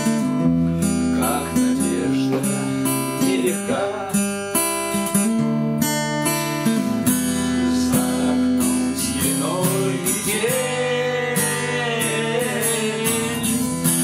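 Steel-string acoustic guitar strummed in a steady rhythm as a song accompaniment; in the second half a man's voice sings over it.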